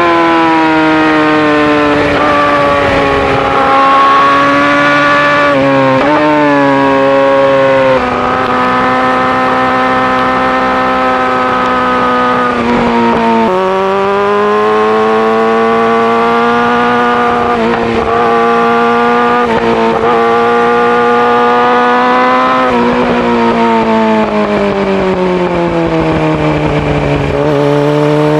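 Yamaha R6 inline-four with an Akrapovic full exhaust system running under load, its pitch mostly holding steady. The pitch drops suddenly a couple of times, then sinks slowly near the end and starts to rise again.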